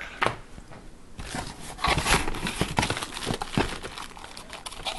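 Clear plastic packaging wrap crinkling and rustling as wrapped parts are handled in a cardboard box, with many short crackles that are busiest through the middle.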